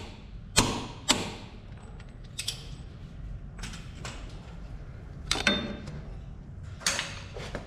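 A torque wrench being worked on a transfer case output flange nut, tightening it to 100 ft-lb: a series of separate metallic clicks and clunks, spaced irregularly.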